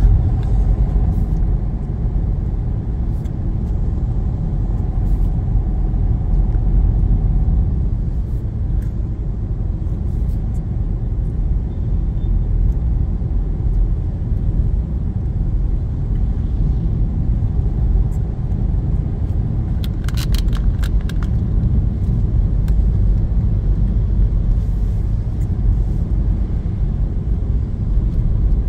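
Car cabin noise while driving on a wet road: a steady low rumble of engine and tyres. A short quick run of clicks comes about two-thirds of the way through.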